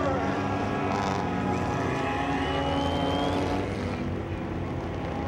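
Racing engines running at a steady pitch, thinning out about four seconds in.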